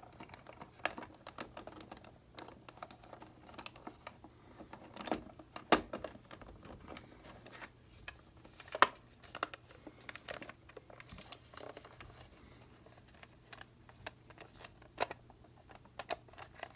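Irregular small clicks and taps of plastic and metal parts of a Copal flip clock being handled and fitted back together during reassembly, with sharper clicks a little before 6 seconds and near 9 seconds, over a faint steady hum.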